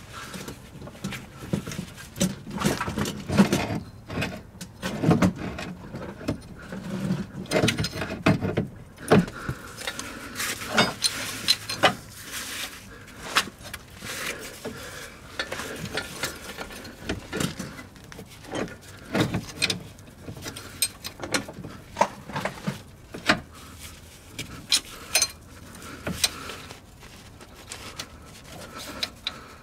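Metal hand tools on a car's front suspension: a ratchet wrench working the lower ball joint nut, giving irregular metallic clicks and clinks every second or so.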